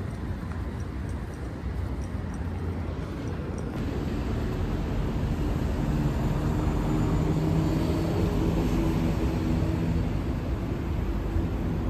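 Steady low rumble of a motor vehicle on the move. About four seconds in, the sound changes abruptly and a steady engine hum with several pitched tones joins the rumble.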